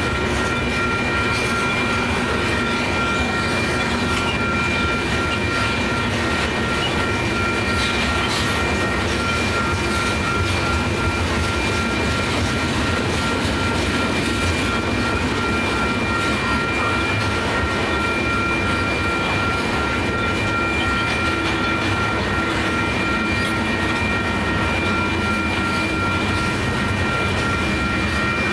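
Tank cars of a freight oil train rolling past at a grade crossing: a steady rumble and clatter of wheels over the rails, with a steady high-pitched ringing tone held above it.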